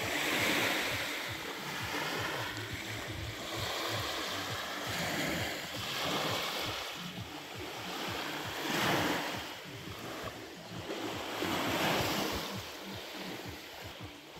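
Black Sea surf washing onto the beach, a steady wash of water that swells and fades every second or two as waves come in.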